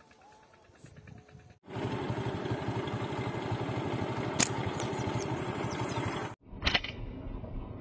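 A loud, steady engine-like running noise starts suddenly a couple of seconds in and stops abruptly near the end. A single sharp snap of a slingshot being shot comes about four seconds in.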